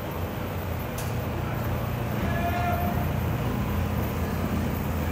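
Steady low rumble of city traffic, with a short pitched tone a little over two seconds in.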